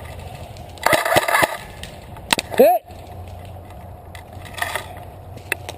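A short, rapid burst of airsoft gun fire as clicks about a second in, followed by a shouted "Hey!"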